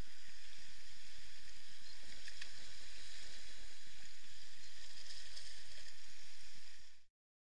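Sea waves washing and sloshing against shore rocks, with wind buffeting the microphone as a low rumble. The sound fades out quickly about seven seconds in.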